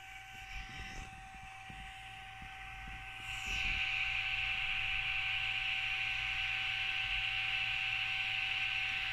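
Steady hiss with two constant whining tones, a fan or small machine running, which gets louder about three and a half seconds in. A few soft bumps underneath.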